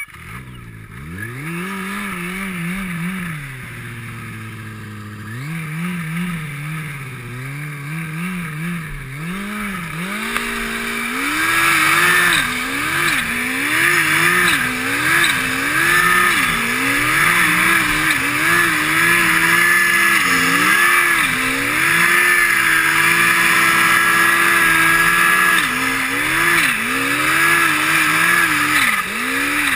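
Turbocharged snowmobile engine revving up and down over and over as the sled is ridden, the throttle opened and eased again every second or two. About halfway it holds steadier and louder, with a rushing hiss over the engine.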